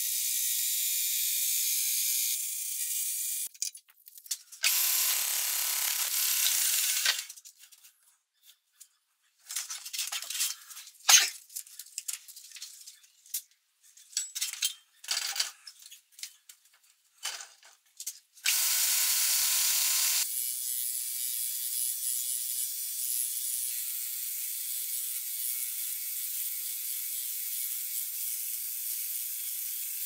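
Workshop tool sounds: a homemade band saw cutting a wooden board, a short burst of machine noise, then scattered clicks and knocks, and finally a homemade belt grinder sanding wood steadily over the last ten seconds or so. The machine noise is thin and hissy, with no low rumble.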